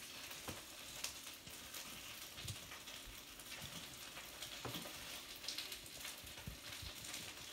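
Potstickers frying in oil in a pan: a faint, steady sizzle with scattered small crackles and pops.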